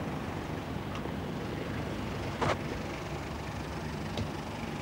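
Steady low rumble of background noise, with one sharp knock about two and a half seconds in.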